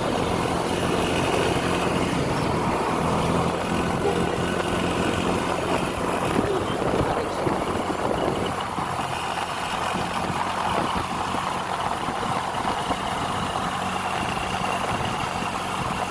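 Heavy road vehicle's engine running in traffic, a steady rumble with a low hum. The low part of the rumble eases off about halfway through, as if the vehicle pulls away.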